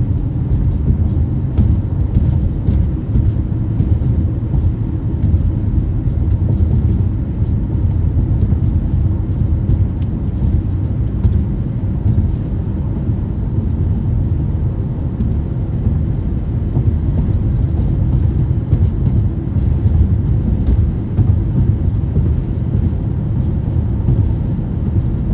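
Steady low rumble of a moving vehicle, even in level throughout.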